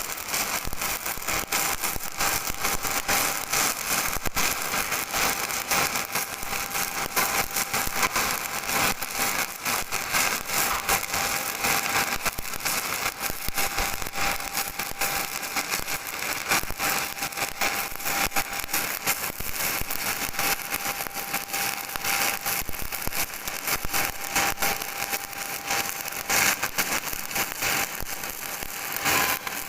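Electric welding arc crackling and sizzling steadily, with a faint steady tone underneath.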